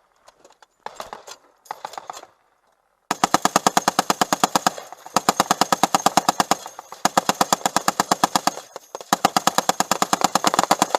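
Machine gun firing long, rapid automatic bursts, about ten rounds a second, each burst one to two seconds long with short pauses between. A few shorter, quieter bursts of fire come in the first couple of seconds.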